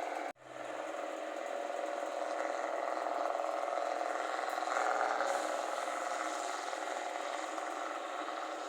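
Rice combine harvester's engine running steadily with a loud exhaust. The sound cuts out for an instant just after the start, then swells slightly about five seconds in.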